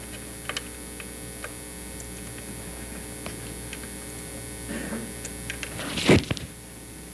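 Steady mains hum from the powered rotating-field apparatus, with a few faint clicks. About six seconds in, a single loud knock comes as the rig is handled, and the hum is a little quieter after it.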